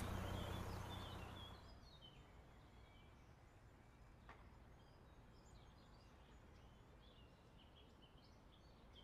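Faint outdoor ambience with small birds chirping on and off, while a low steady hum fades out over the first second and a half. A single faint click about four seconds in.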